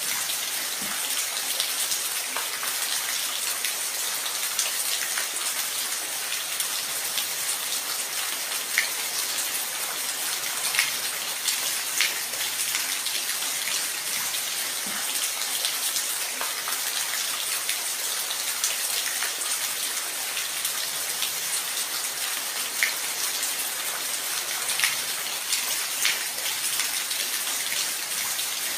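Steady rain falling, an even hiss with individual drops ticking sharply now and then.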